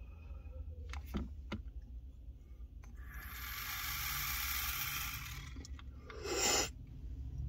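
A long hit drawn through a dab rig: a steady airy hiss for about two and a half seconds, then a short, loud exhale. Two faint clicks come about a second in.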